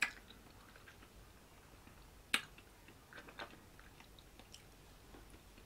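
Quiet mouth sounds of a person eating ice cream off a metal spoon: a few soft wet lip smacks and clicks, the sharpest a little past two seconds in.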